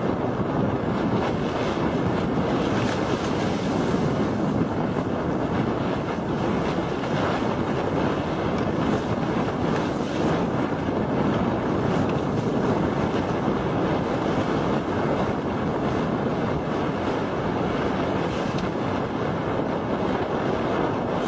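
Steady wind buffeting the microphone over the rush of surf.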